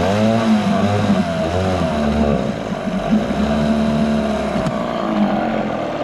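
Johnson 4 hp twin-cylinder two-stroke outboard running on a shot of carb cleaner sprayed into the intake, started cold without choke, its revs rising and falling several times as the throttle is worked. Running on the cleaner shows the ignition system works, and the mechanic takes the no-start to be, as it could just be, a dirty carburettor.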